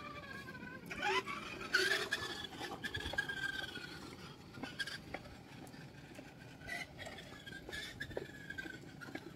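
Small electric motor and gears of a toy RC van whining, the pitch sagging and then climbing sharply about a second in as it speeds up, then easing and rising again. Short scuffs and footsteps on concrete are heard throughout.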